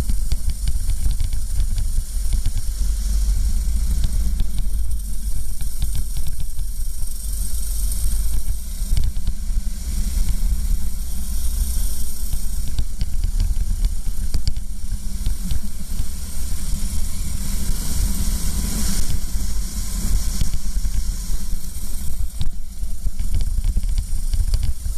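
Racing kart's engine running at speed, heard through an onboard camera, with heavy wind rumble on the microphone and a steady hiss over it.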